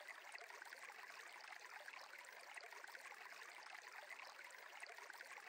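Faint, steady trickle of a flowing stream.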